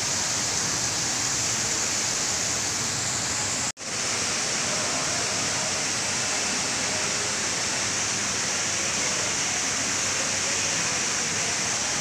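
Steady rush of water falling from an indoor artificial rock waterfall into its pond. The sound cuts out for a split second about four seconds in, then resumes unchanged.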